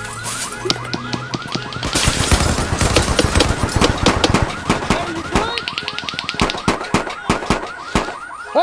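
A fast-repeating electronic alarm tone, with rapid gunfire sound effects cracking over it, heaviest from about two seconds in.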